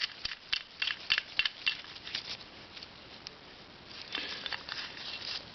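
Small metal parts clicking and ticking as the retaining nut is started by hand on the thread of a motorcycle ignition switch, with a short rustle about four seconds in.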